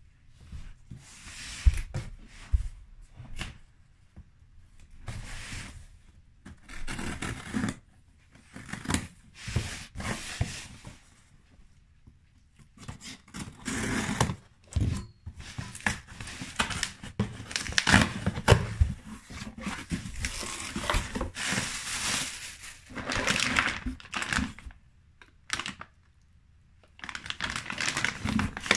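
Cardboard box being opened by hand: packing tape slit and torn, cardboard flaps scraping and bumping, in irregular bursts with short pauses. Near the end a plastic bag crinkles as it is lifted out.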